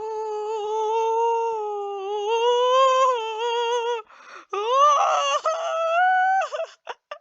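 A child's voice holding one long, gently wavering note for about four seconds, then, after a short break, a rougher vocal sound that rises in pitch, with a few short vocal bits near the end.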